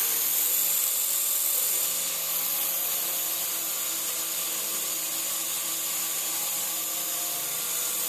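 Syma S107G mini coaxial remote-control helicopter in flight, its small electric motors and twin rotors running steadily with a high whir.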